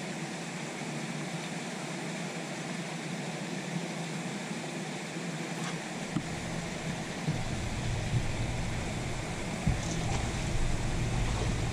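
Steady outdoor wind-and-water noise on an open boat deck, with wind buffeting the microphone from about halfway through.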